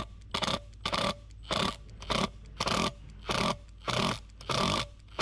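Milwaukee M18 Fuel cordless impact driver fired in short bursts, about two a second, driving a self-tapping screw into a new mower deck spindle housing to cut the threads in its bolt hole.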